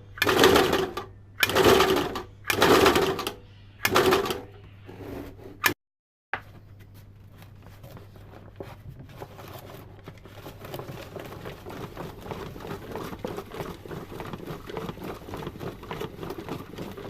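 Sewing-machine motor driving a homemade tin-can onion slicer: it runs in about four short bursts roughly a second apart, then, after a brief break, runs steadily with a rapid clatter that grows a little louder.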